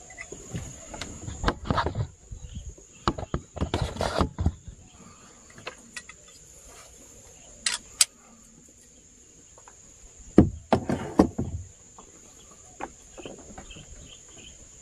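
Scattered knocks and clatters in four short bursts, over a steady high-pitched whine.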